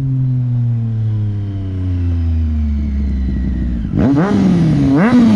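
Triumph Street Triple 765's three-cylinder engine through a Toce Performance slip-on exhaust, its note falling steadily in pitch. About four seconds in it turns much louder, climbing and dropping in pitch a few times as the bike accelerates.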